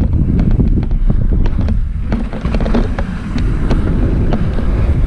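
Wind buffeting the microphone of a mountain bike camera during a descent, with frequent clicks and knocks from the bike rattling over the trail.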